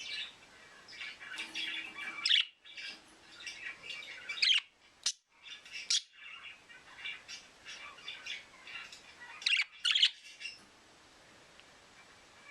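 Pet budgerigars chattering and chirping, broken by several loud sharp squawks, falling quiet near the end.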